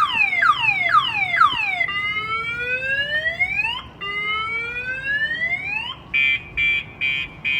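Viper 7146V car alarm siren going off, pretty loud, set off by a hard hit on the armed vehicle's shock sensor. It steps through its tones: quick falling whoops about two a second, then two long rising sweeps, then steady beeping about two a second from about six seconds in.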